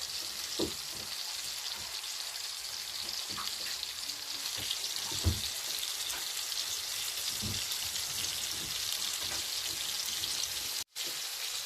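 Flour-dusted Dover sole frying in hot oil in a pan, a steady high sizzle. A few light knocks sound over it, the loudest about halfway through.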